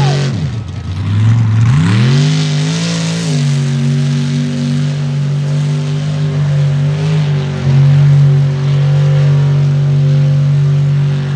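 Mud-racing pickup truck's engine under hard throttle through a mud pit: the revs drop sharply at first, climb back over about two seconds, then hold at a steady high pitch, briefly getting louder near the end.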